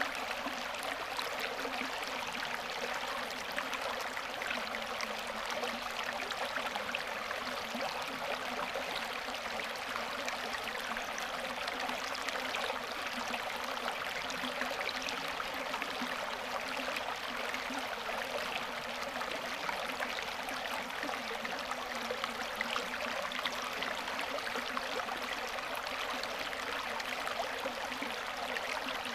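Shallow creek water running in small riffles over flat rock ledges: a steady, even babble throughout.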